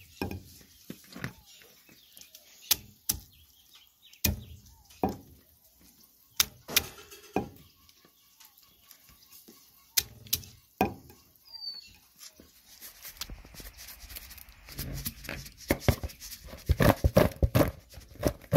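Unripe green jocotes being crushed one at a time under a stone pestle on a stone metate: sharp knocks and cracks about once a second. In the last few seconds, a busier, louder clatter as the crushed fruit is handled in a plastic bowl.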